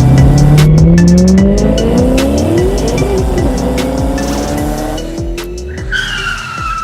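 Sports car engine sound effect accelerating through the gears, its pitch climbing in repeated runs and fading away, then a tire squeal near the end, over an electronic music beat.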